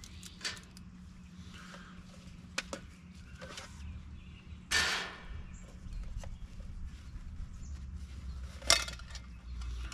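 Camping gear being handled on a metal table: a few light clicks as the folding steel pocket stove is closed, then a plastic canteen pulled out of its cloth cover and set down, with a brief scraping knock about five seconds in. A sharp click comes near the end.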